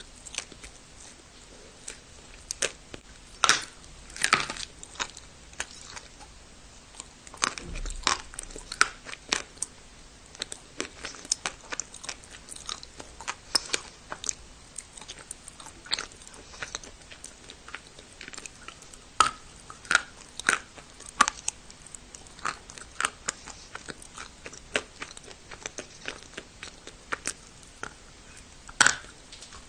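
Close-up crunching and chewing of hard, dry clay (turbah prayer-tablet clay): sharp, irregular crunches as pieces are bitten and broken between the teeth, a few louder bites standing out.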